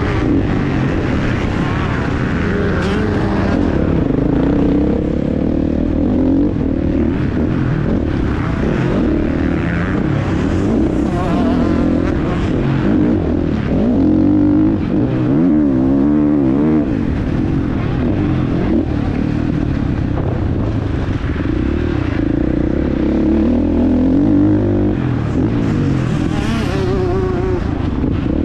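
Husqvarna FC 450 four-stroke single-cylinder motocross engine being ridden hard, its revs rising and falling over and over with the throttle and gear changes. The revs waver quickly up and down about halfway through.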